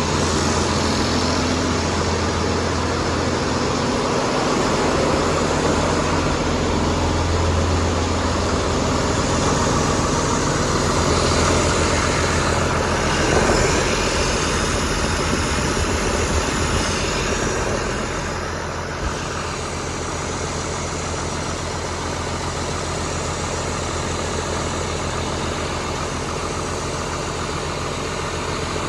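International 3788 tractor's turbocharged six-cylinder diesel idling steadily, running on a newly fitted Garrett turbocharger. It drops a little in level about 18 seconds in.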